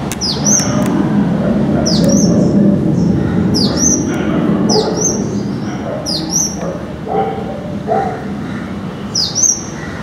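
Purple-rumped sunbird giving a repeated sharp, high call about every second or so, each note dropping in pitch and then briefly levelling off. A steady low rumble of road traffic runs underneath.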